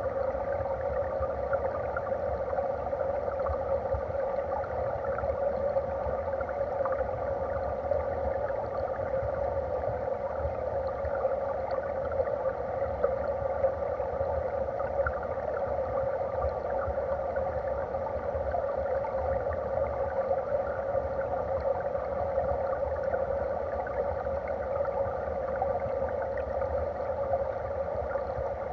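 Stream water flowing past a submerged underwater camera: a steady muffled rushing with faint scattered ticks and crackles.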